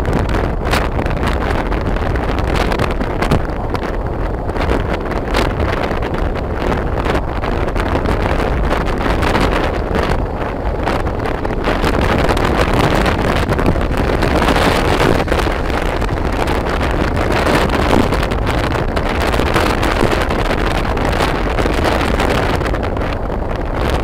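Wind rushing and buffeting over a phone microphone on a moving motorbike, mixed with the bike's running and road noise; it grows somewhat louder about halfway through.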